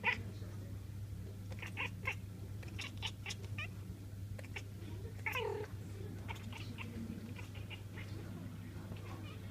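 Domestic cat chattering at a bird outside the window: quick runs of short clicking chirps, with one longer meow falling in pitch about five seconds in.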